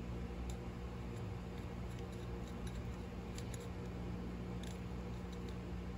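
Transformer-type soldering gun humming steadily while its tip heats a twisted copper wire splice to flow solder into it, with a few faint ticks in the middle.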